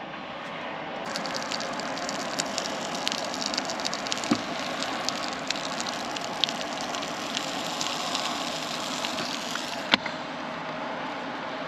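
Electric waffle maker sizzling and crackling as it heats with butter in it. A sharp click near the end, after which the sizzle turns duller.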